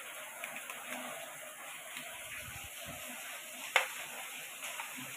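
Metal spoon stirring and scraping a buttery garlic, coriander and chili-flake mix on a plastic plate, with soft scattered ticks and one sharp clack a little under four seconds in.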